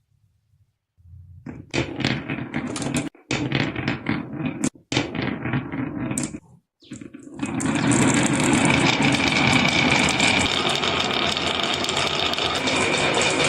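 Toy marble run: marbles clatter down the track in irregular bursts with short pauses. From about halfway the sound changes to a steady, dense rattle.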